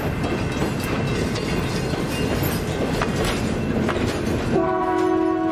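Riveted steel passenger coaches rolling slowly past, their wheels rumbling and clicking over the rail joints. About four and a half seconds in, a train whistle starts sounding a steady chord of several notes.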